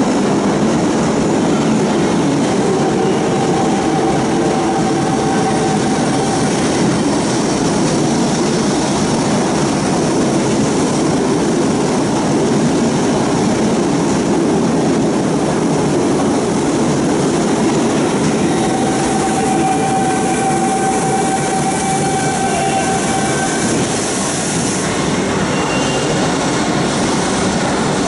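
Toei 5300 series subway train rolling in alongside an underground platform and braking to a stop, a steady rumble of wheels on rail with faint brake squeals that comes down slightly near the end as it halts.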